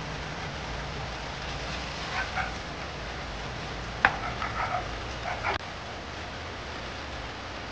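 A dog barking: a couple of short barks about two seconds in, then a quicker run of barks from about four seconds that cuts off suddenly.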